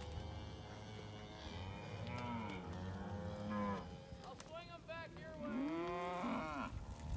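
A pen of cattle mooing and bawling, several animals calling over one another at once, with higher-pitched calls about four and a half seconds in.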